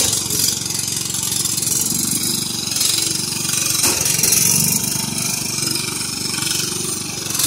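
Small engines of two riding lawn mowers running together as the mowers push against each other in a derby, with a sharp knock at the start and another about four seconds in.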